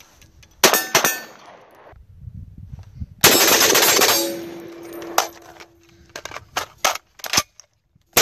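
Gunfire on steel targets: two handgun shots, then about a second of rapid .308 fire from an FN SCAR 17 rifle. A struck steel plate keeps ringing on one steady note for about two seconds, and a few more sharp cracks follow.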